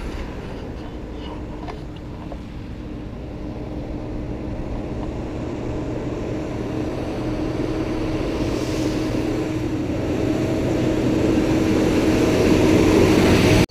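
Motor vehicle engine and road noise, a steady low rumble that grows gradually louder over the last several seconds.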